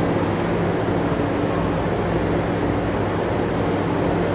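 Steady mechanical hum with an even rushing noise over it, unchanging throughout.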